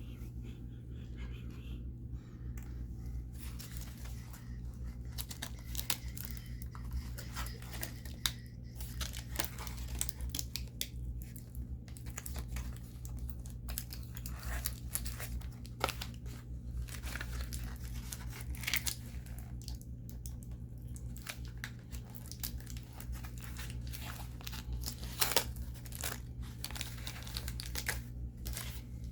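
Plastic toy packaging crinkling and tearing as action-figure accessories are unwrapped, in irregular rustles with a few sharper crackles.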